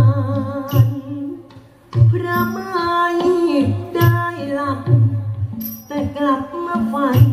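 Thai likay-style singing from a costumed performer on a headset microphone: a held, wavering melody with strong vibrato over backing music with a regular low beat. The music and voice dip briefly a little under two seconds in, then resume.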